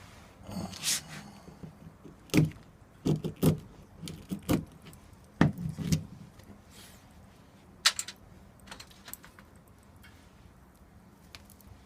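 Irregular knocks and metallic clinks as wood and fatwood pieces are handled against a small metal wood stove, about ten in all, the first ringing briefly about a second in.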